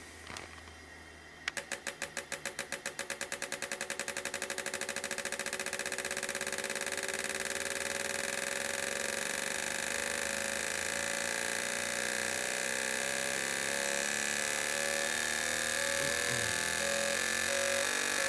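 Four fuel injectors from a 1.6 Polo being pulsed on an injector test bench during a flow test after cleaning. Starting about a second and a half in, there is a rapid train of clicks that speeds up until it becomes a continuous buzz.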